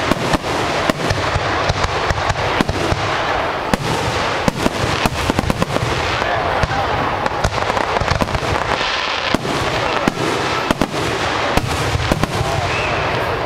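Aerial fireworks going off in a rapid, continuous barrage: many sharp bangs and crackles overlapping one another without a pause.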